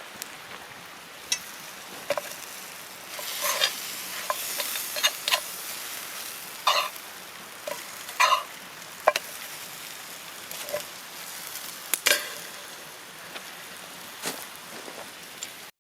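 Steak sizzling over a small campfire, a steady hiss broken by irregular sharp pops and crackles. The sound cuts off abruptly near the end.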